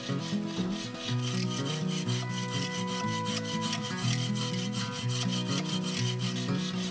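Bow saw cutting through a log, a steady rasping of the blade going back and forth through the wood, with background music underneath.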